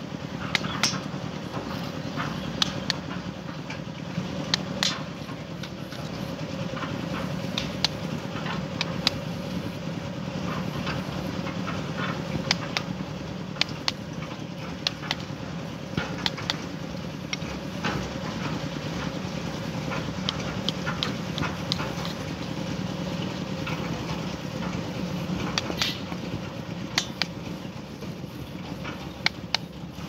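An engine running steadily with an even hum, and frequent short clicks and scrapes of a mason's steel trowel working wet sand-cement mortar.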